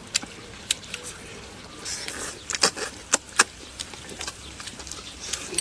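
Someone eating at close range: a handful of sharp clicks and smacks, bunched together around the middle, over a quiet background.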